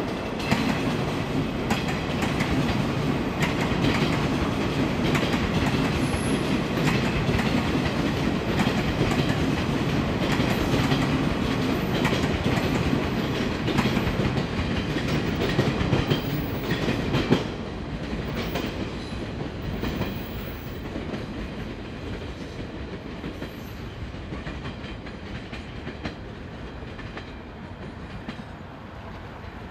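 A train running on jointed track, its wheels clacking over the rail joints with a steady rumble. The clacking is loud for the first half and fades away after about 17 seconds, leaving a quieter rumble.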